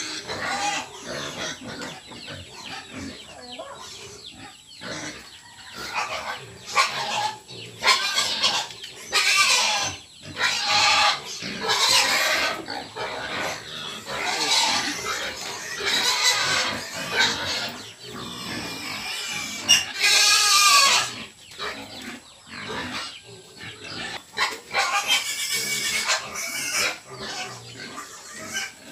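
Piglets squealing in repeated bouts, the loudest about twenty seconds in.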